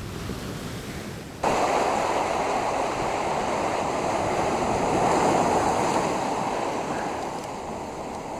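Ocean surf washing up the beach, a steady rushing noise that jumps suddenly louder about one and a half seconds in.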